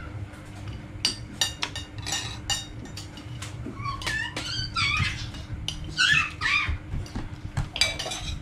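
A dog whining in short, high cries that slide down in pitch, several in a row, mixed with sharp clicks of a metal spoon against a plate.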